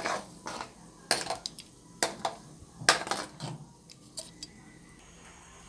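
A cooking utensil clinking and scraping against a metal wok in irregular knocks while Coke is stirred into sautéed garlic and onion. The knocks thin out near the end.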